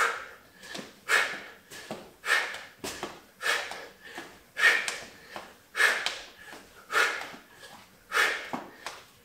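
A man's forceful exhales under exertion, one short sharp breath about every second in a steady rhythm, each matched to a spin of a heavy Bulgarian bag around the head.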